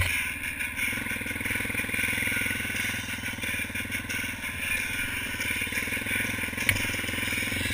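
ATV engine running steadily as the quad rides along a dirt trail, with one short sharp knock near the end.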